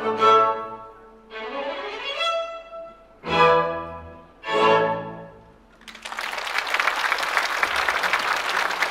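Chamber string orchestra ending a piece: a held chord fades, another sounds, then two short loud closing chords ring out and die away. Applause breaks out about six seconds in.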